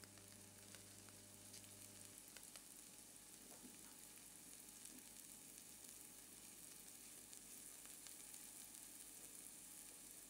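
Chopped red onions sizzling faintly and steadily in olive oil in a hot frying pan. A low hum cuts off about two seconds in.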